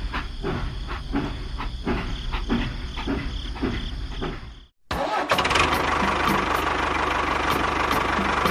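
A motor running with a regular knock about every 0.7 s and a steady high whine; after an abrupt cut about five seconds in, a denser, steady running noise takes over.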